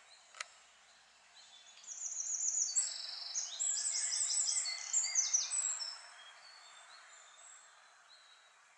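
A songbird singing a fast song of high, repeated notes for about four seconds, starting about two seconds in, with fainter birdsong around it. A single sharp click comes just after the start.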